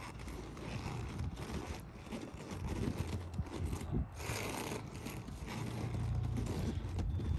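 Heavy vinyl of a deflated inflatable slide rustling and scraping as it is handled and folded by hand, with a bout of louder rustling about four seconds in, over a low rumble.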